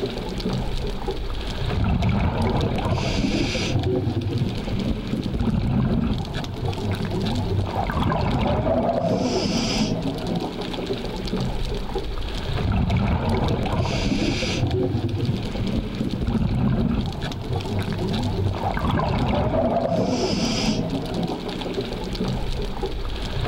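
Scuba diver breathing through a regulator underwater: a hissing breath about every five to six seconds, four in all, over a steady low underwater rumble.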